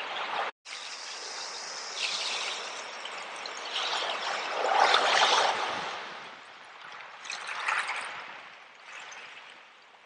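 Small ocean waves breaking and washing up over a beach of shells and pebbles: a steady hiss of surf that swells loudest about halfway through, again more lightly a little later, and eases off near the end. The sound cuts out for a moment about half a second in.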